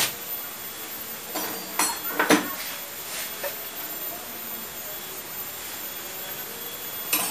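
Pliers clicking and scraping against the metal of a motorcycle's front disc-brake master cylinder while its stuck piston is tugged at, a piston that may be rusted in. A few short clicks come in a cluster about two seconds in, one more follows, and more come near the end.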